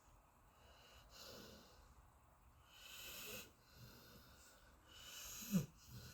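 Golden retriever snoring softly in deep sleep: three slow, breathy snores about two seconds apart, the last ending in a short, sharp snort.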